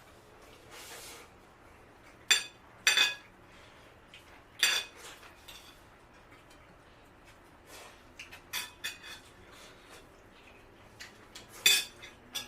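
Metal spoons or cutlery clinking against plates, scattered sharp clinks with a short ring: four louder strikes and a run of smaller ticks.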